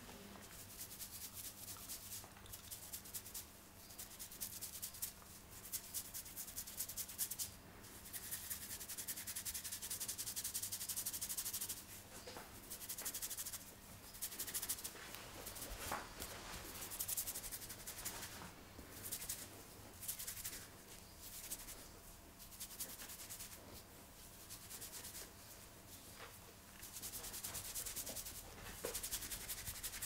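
Fingers rubbing and scrubbing through long hair and over the scalp in a head massage: a close, dry, scratchy rustle that swells and fades in irregular bursts, with a few sharp crackles.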